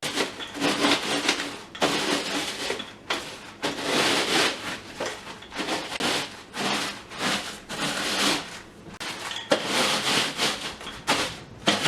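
Graham crackers being crushed inside a plastic bag with a rolling pin: repeated crunching, rustling strokes, about one a second.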